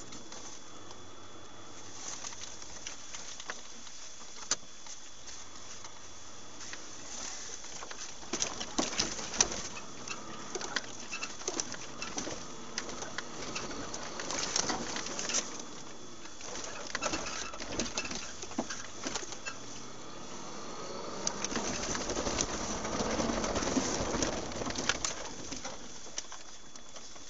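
Cabin noise of a moving vehicle picked up by a dashboard camera: a steady rumble and hiss with many irregular small clicks and rattles, and a faint steady high whine throughout. The noise grows louder and denser for a few seconds near the end.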